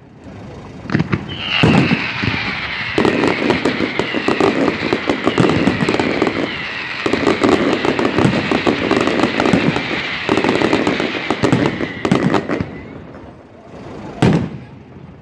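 Fireworks display: a dense barrage of bangs and crackling, overlaid for most of the time by many overlapping whistles that slide down in pitch. The whistling stops near the end and one loud bang follows.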